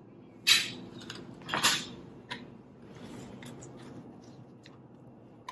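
Kitchen knife and utensil sounds while radish is cut up: two short scraping strokes about a second apart, then lighter clicks and taps.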